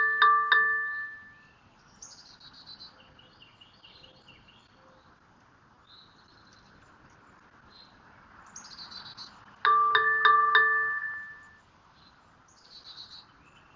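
A bright metallic chime of a few ringing tones, struck several times in quick succession at the start and again about ten seconds in, like a wind chime. Between the strikes, faint birdsong of short high chirps.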